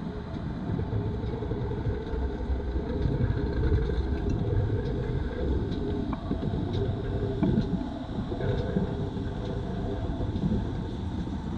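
A train running along the line: a steady low rumble with a few light clicks scattered through it.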